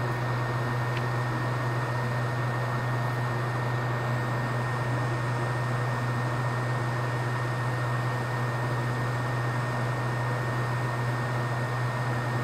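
Bench fume extractor fan running steadily: an even whooshing hum with a low drone and a thin high whine on top.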